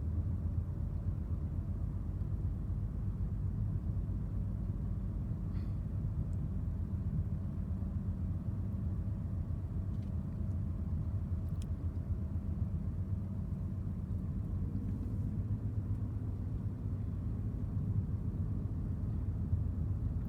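Steady low road and engine rumble inside a moving Ford car's cabin, with a faint steady hum in the middle stretch.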